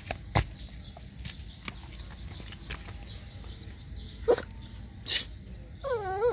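A few short animal calls among light clicks and knocks: two sharp calls about four and five seconds in, then a wavering, pitched call near the end.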